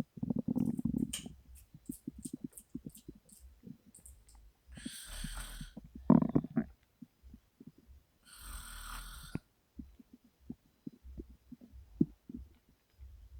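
A sleeping woman breathing heavily through her open mouth, with two long noisy breaths about five and nine seconds in. Between them her stomach gurgles and rumbles in runs of short low pops, with one louder rumble just after the first breath.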